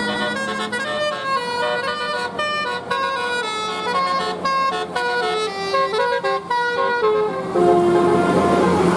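Telolet bus horn, a multi-tone air horn playing a quick tune of short notes that step up and down in pitch. Near the end a louder, noisier sound with a held low tone takes over.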